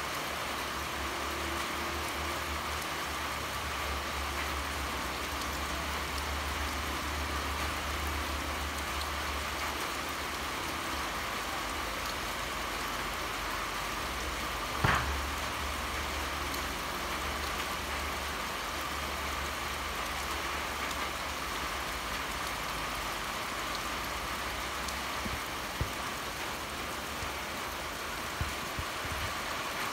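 Steady rain falling, an even hiss with a low rumble underneath. A single sharp knock about halfway through is the loudest moment, with a few fainter ticks near the end.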